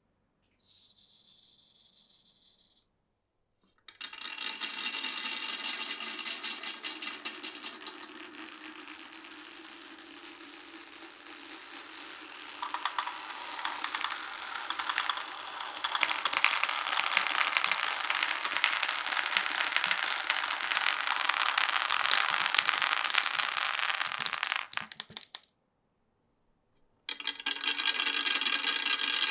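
Glass marbles rolling and clattering along a wooden marble run: a steady rattle full of quick clicks as marbles strike the track and each other, thickening into a dense clatter in the second half. The sound cuts off abruptly twice, once near the start after a short high hiss and once near the end, then starts again.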